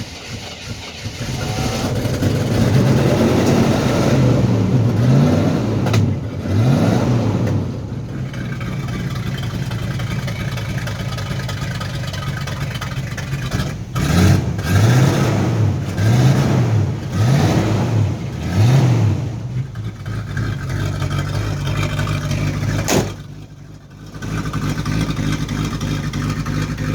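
Old Chevrolet Blazer's carburetted engine running just after a cold start, revved up and down several times in two spells, then settling to a steady run after a brief dip and click near the end. The owner suspects its choke is sticking.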